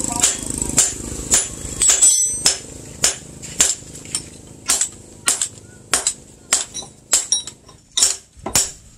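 Hand hammer striking a small steel axe head held in tongs on a steel anvil, about two ringing metallic blows a second, coming a little faster near the end.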